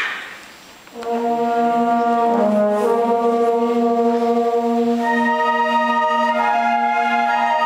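Concert band of brass and woodwinds coming in about a second in with sustained, held chords, a steady low note underneath; higher parts join about five seconds in. A short sharp sound comes right at the start.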